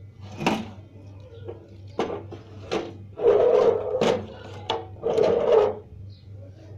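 Gas-stove burner parts being handled and rubbed: several short knocks and scrapes, with two longer rasping rubs about three and five seconds in.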